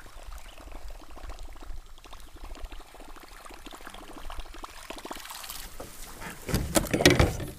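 Water sloshing and trickling against the side of a kayak, with many small rapid ticks and a louder splash near the end.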